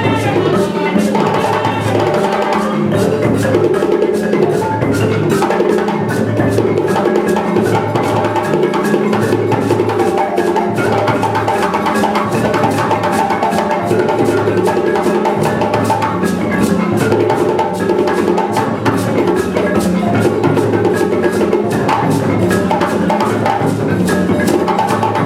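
Percussion-driven music: dense, fast drum and wood strokes over a repeating low bass pattern, at an even loud level.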